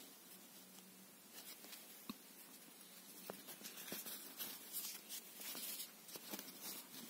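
Faint rustling and scratching of a fabric toy mouse with a feather tail being shaken and brushed over a woven rug, busier in the middle, with a couple of light clicks.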